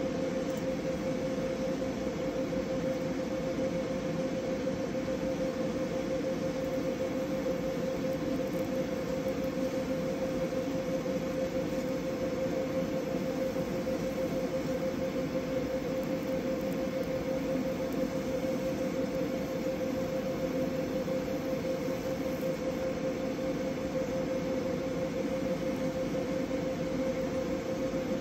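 Fiber laser engraving machine and its fume extraction running while engraving: a steady hum with one constant mid-pitched tone.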